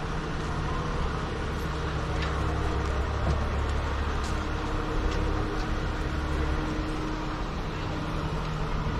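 A vehicle engine idling with a steady low hum over the general noise of a city street. The hum eases off about two-thirds of the way through.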